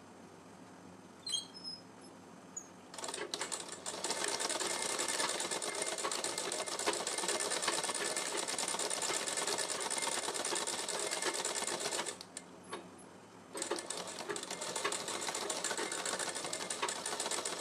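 Sewing machine running, stitching lace onto fabric at a fast, even rate. It starts about three seconds in, runs for about nine seconds, stops briefly, then starts again and runs to the end.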